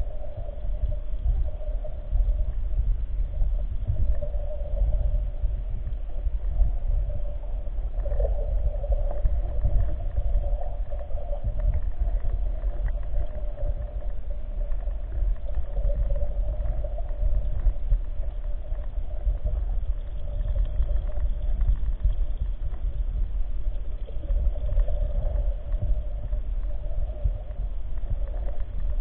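Muffled underwater rumble picked up by a submerged camera, with a steady mid-pitched hum running over it.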